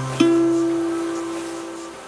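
Background music: a plucked string note struck a moment in, left to ring and slowly fade.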